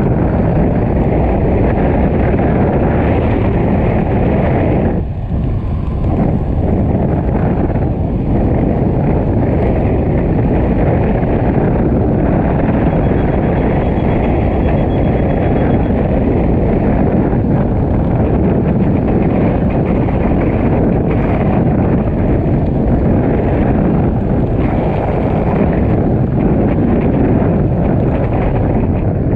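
Steady wind rushing over a helmet-mounted GoPro's microphone as a skydiver descends under an open parachute, with a brief lull about five seconds in.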